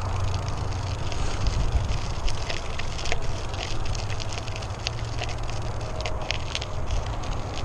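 Trek Domane AL 2 road bike's tyres rolling over a rough, rocky dirt trail: a steady low rumble with irregular crackling and ticking from grit and small stones under the wheels.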